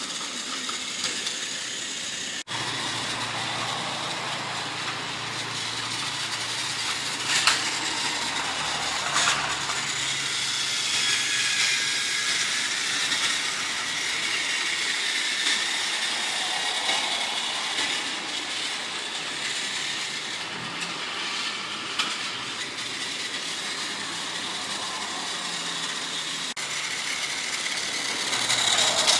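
Trackmaster Peter Sam toy engine's single-AA flat drive unit running steadily as it pulls narrow gauge trucks around plastic track, with a couple of sharp clicks about seven and nine seconds in.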